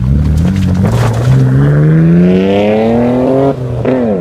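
Nissan Skyline R33's straight-six engine accelerating hard: after a brief dip in revs, the pitch climbs steadily through a gear, drops sharply at an upshift about three and a half seconds in, then starts climbing again.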